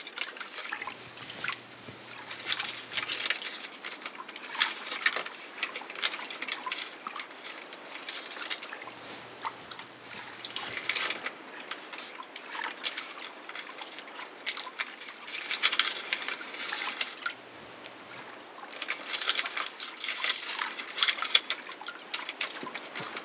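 Sound-designed water trickling and sloshing gently, with bursts of crackling paper being folded every few seconds.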